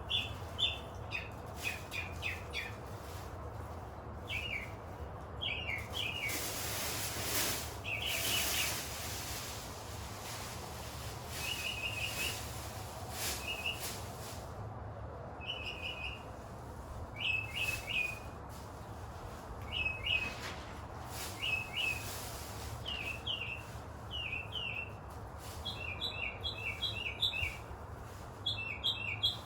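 Small songbirds chirping over and over in quick groups of two to four short high notes, with occasional rustling and clattering.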